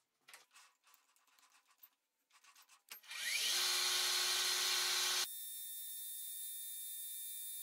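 Metal lathe starting up about three seconds in and running while a two-wheel knurling tool presses into an oiled brass rod, preceded by a few faint handling clicks. A little after five seconds the loud running sound drops suddenly to a quieter, steady high hiss.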